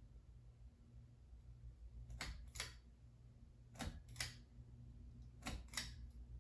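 52-inch Alaska ceiling fan running on low speed, with a low steady hum and a pair of light clicks repeating about every second and a half.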